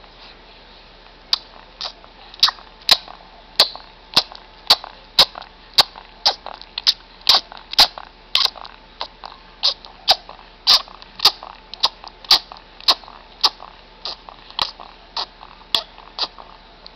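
A three-month-old baby sucking and chewing on his fists, making a steady run of sharp smacking clicks about twice a second that starts about a second in.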